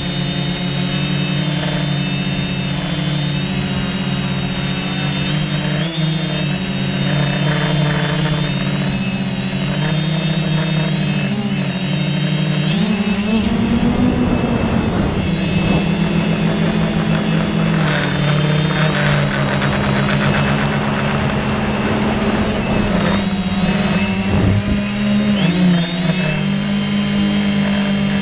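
Multirotor drone's motors and propellers running with a steady, loud buzzing whine, heard from the drone's own camera; the pitch rises about halfway through as it climbs.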